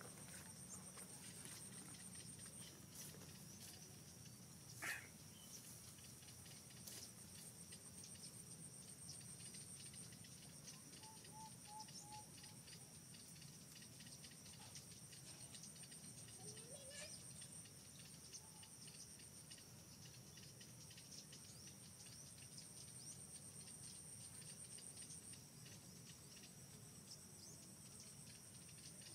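Faint, steady, high-pitched chirring of insects in the trees, with one sharp knock about five seconds in.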